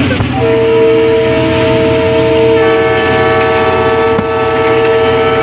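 Diesel locomotive air horn sounding one long, steady blast that starts about half a second in, with more notes joining about two and a half seconds in to make a chord. Under it is the constant rumble of the train running at speed.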